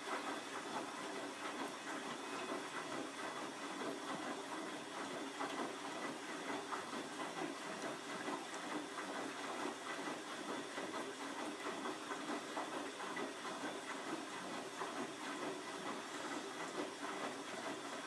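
Bosch WFF2000 washing machine taking in water for its second rinse: a steady hiss of water rushing in through the inlet valve and detergent drawer.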